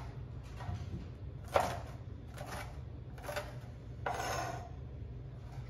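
A chef's knife chopping sweet peppers on a cutting board: four sharp knocks of the blade against the board, about one every second, over a steady low hum.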